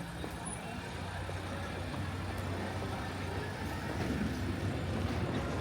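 A motor vehicle's engine running steadily, a low hum under general street noise.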